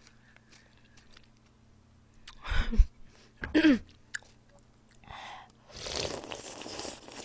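Close-miked eating of katsuo udon: chewing, two brief loud mouth sounds around two and a half and three and a half seconds in, then a long slurp of noodles and broth off a spoon from about six seconds in.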